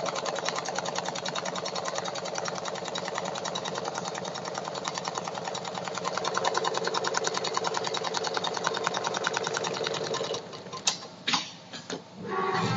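Richpeace automatic pattern sewing machine stitching upholstery fabric, its needle running at a fast, steady rate. The stitching stops about ten seconds in, followed by a few sharp clicks and clunks.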